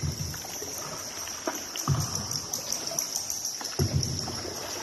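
Paddle strokes of a small tour boat on a cave river: a low thump with a watery splash about every two seconds, with a few lighter knocks between, over a steady high hiss.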